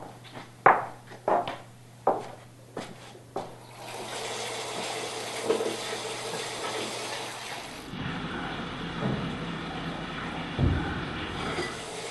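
A few sharp knocks and clatters, then water running from a kitchen faucet into a sink from about four seconds in, steady to the end.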